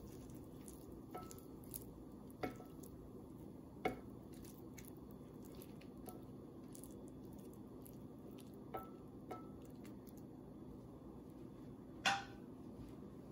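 A wooden spatula tapping and clinking now and then against a ceramic plate and pan as cooked shrimp are scraped out, with one sharper knock near the end, over a faint steady hum.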